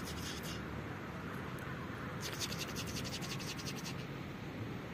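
Rapid, high-pitched raspy clicking in two bursts, one right at the start and a longer one from about two to three and a half seconds in, at roughly ten clicks a second, over a steady low background noise.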